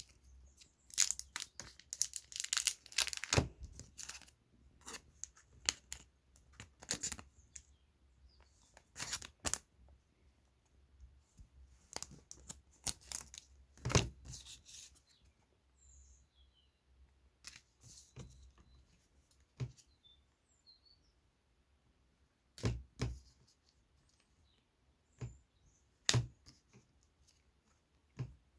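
A card pack being torn open by hand: irregular tearing and crinkling of the wrapper, densest in the first few seconds, followed by scattered rustles as the Pokémon cards are handled.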